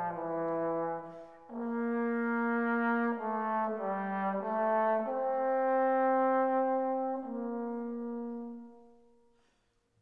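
Background music: a slow melody of long held notes in chords, fading out near the end.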